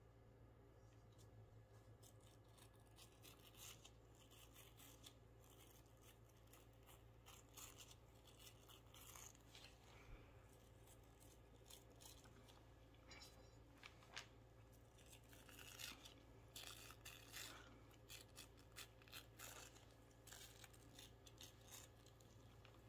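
Faint, irregular scratchy flicks of a thumb run along the bristles of a soft toothbrush, spattering paint, over a steady low hum.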